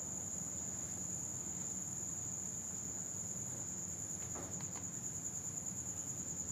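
Steady high-pitched insect trill, with a few faint light taps of a knife on a wooden chopping board about four and a half seconds in.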